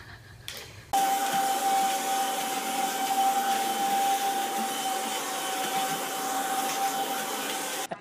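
Vacuum cleaner running with a steady whine over its rushing air. It starts suddenly about a second in and cuts off just before the end.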